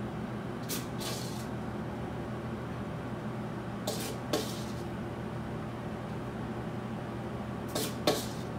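Spoon scooping and scraping charred corn salad onto a plate: three pairs of short, sharp scrapes a few seconds apart, over a steady low hum.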